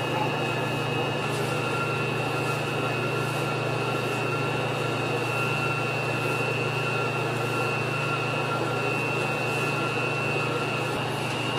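Commercial spiral dough mixer running steadily, its hook working flour and water into a rough, shaggy dough in a steel bowl. A constant motor hum with a steady high whine above it.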